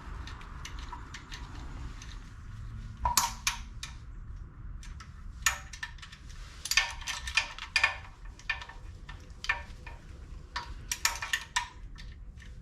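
Short clusters of sharp metallic clicks and clinks from a hand wrench starting the cylinder head bolts on a Northstar V8, over a low steady hum.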